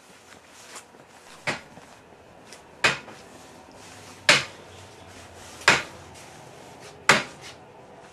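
Hammer blows at a workbench, a sharp strike about every one and a half seconds, five strong ones in a row with a few lighter taps between.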